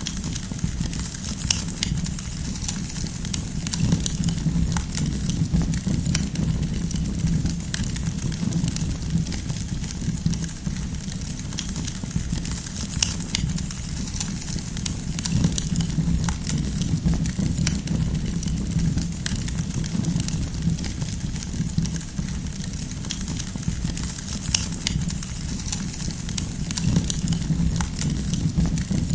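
Campfire burning, the firewood crackling with frequent sharp pops over a steady low rumble.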